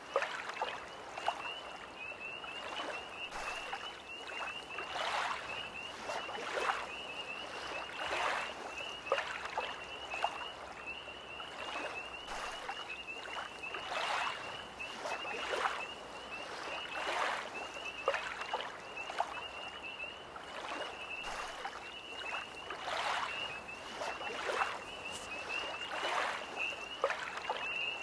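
Small lake waves lapping and splashing irregularly, every second or two, over a continuous high, rapidly pulsing trill of tree frogs.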